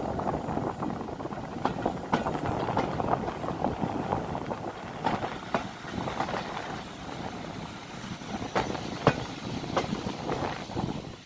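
Railway coaches rolling at speed, heard from the carriage window: a steady rumble of wheels on rail with irregular sharp clicks and clacks as the wheels cross rail joints and pointwork.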